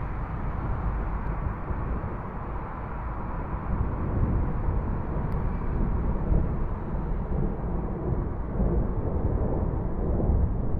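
Distant rolling thunder of an approaching thunderstorm: a continuous low rumble that swells a little in the second half.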